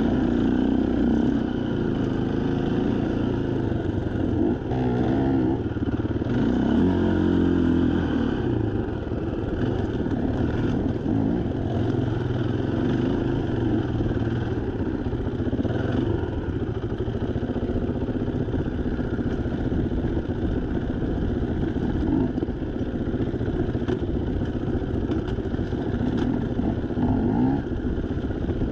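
Dirt bike engine running under load on trail, its revs rising and falling repeatedly as the throttle is worked through the turns.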